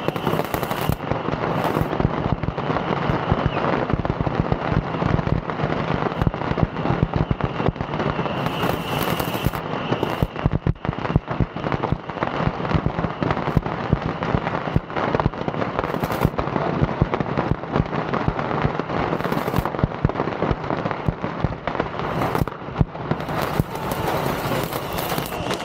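Beehive fireworks: a barrage of bottle rockets and firecrackers fired into the crowd. It makes a dense, unbroken crackle of rapid bangs.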